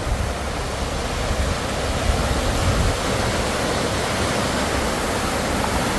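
A small creek swollen by torrential rain, its floodwater rushing past in a steady, full-bodied rush that stays even throughout.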